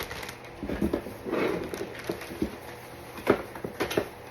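Handling noise as a new water pump and its packaging are unpacked: rustling in the first half, then a few sharp clicks and knocks of plastic parts.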